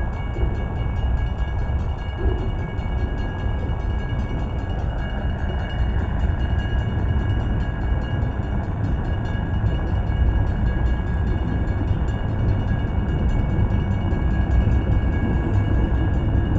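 Freight train cars, flatcars and then tank cars, rolling past: a steady rumble of wheels on rail, with a thin steady high tone over it.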